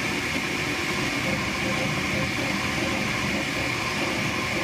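Flashforge Dreamer 3D printer running mid-print: a steady whir and whine from its fans and stepper motors as the print head moves over the part.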